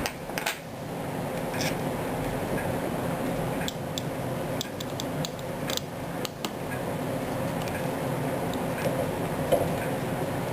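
Scattered light clicks and taps, most of them bunched in the middle, over a steady background hum.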